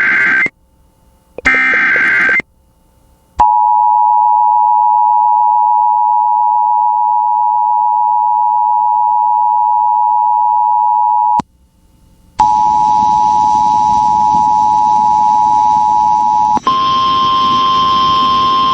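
Emergency Alert System tones: short screeching SAME header data bursts, then the eight-second two-tone attention signal (853 and 960 Hz together). After a one-second gap comes a steady alert tone over hiss, which switches about four seconds later to a slightly higher, buzzier tone.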